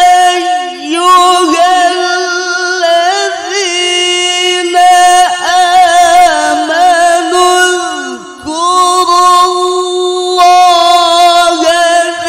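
A male qari reciting the Quran in the melodic tilawah style through a microphone and PA. He holds long, high notes ornamented with rapid melismatic turns, and the voice glides down and dips briefly about eight seconds in before the next held phrase.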